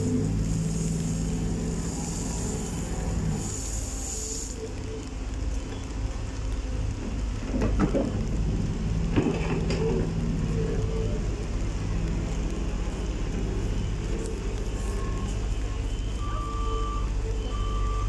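Diesel engine of a Volvo wheeled excavator running steadily, with two clanks about eight and nine seconds in. Near the end a reversing alarm beeps about once a second.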